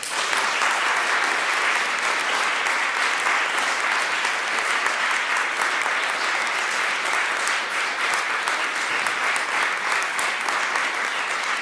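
Audience applauding, starting suddenly and holding steady, fading near the end.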